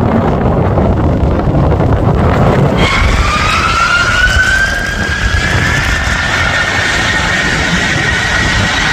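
Strong wind rumbling on the microphone, then an abrupt change to jet airliner engine whine that rises in pitch for a few seconds and levels off, as the engines spool up.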